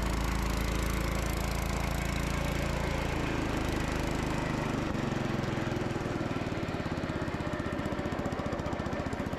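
Gravely C10 walk-behind tractor's single-cylinder Kohler engine running its MA-115 snow blower attachment. A steady drone that, about halfway through, changes to a choppier, pulsing beat.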